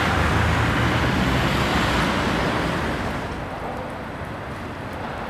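Steady rush of road traffic. It fades to a quieter, duller hush about three seconds in.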